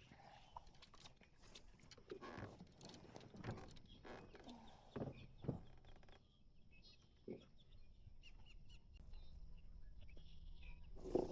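Faint, scattered knocks and rustles from handling a freshly caught bass in a kayak, with a sharper knock near the end.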